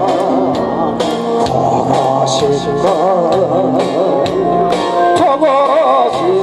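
A man singing a Korean trot-style song into a handheld microphone over a backing track, amplified through a PA. The melody wavers with heavy vibrato over a steady drum beat.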